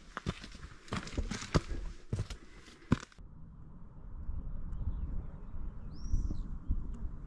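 Hiking footsteps on a rocky, stony trail: irregular sharp clicks and scrapes of boots on rock, stopping abruptly about three seconds in. After that only a low steady noise remains, with a single short bird chirp around six seconds.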